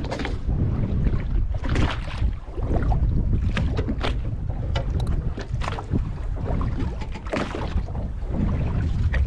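Wind rumbling on the microphone aboard a drifting fishing boat at sea, with irregular slaps of water against the hull.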